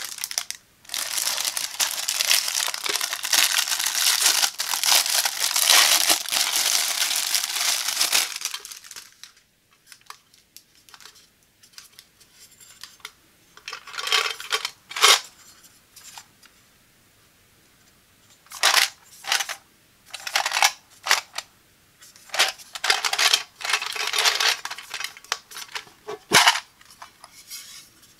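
Clear plastic wrap on a small tin box crinkling and tearing as it is peeled off, a dense crackle for the first eight seconds or so. After a quiet spell a paper band rustles off the tin, then over the last ten seconds come separate clicks and clinks from the metal tin and the plastic sewing clips inside.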